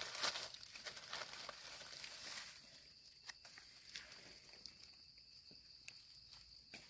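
Faint rustling and light crackling of dry leaves and grass as a mushroom is picked by hand and dropped into a wicker basket. A steady, thin high-pitched whine sits behind it.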